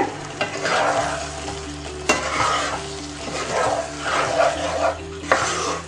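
Spatula stirring grated coconut into banana pieces simmering in jaggery syrup in a non-stick pan, the syrup sizzling as it cooks. There are two sharp knocks of the spatula against the pan, about two seconds in and near the end.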